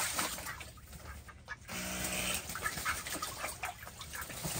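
Ducks splashing and paddling in a small plastic kiddie pool of water, with one short duck quack about two seconds in.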